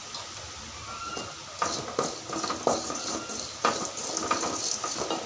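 Wooden spatula stirring and scraping dry-roasting spices (cumin seeds, pepper, coriander powder) around a metal pan: a run of quick scraping strokes, two or three a second, starting about a second and a half in.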